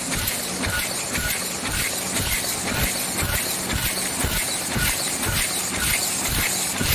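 Ice cream pot forming machine running at production speed of about 120 pots a minute, with a continuous mechanical clatter of many close-spaced knocks and clicks over a steady hiss.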